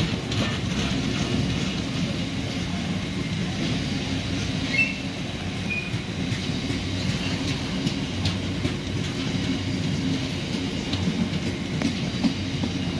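Bogie tank wagons of a long freight train rolling steadily past close by, their wheels clattering over the rail joints with a continuous low rumble.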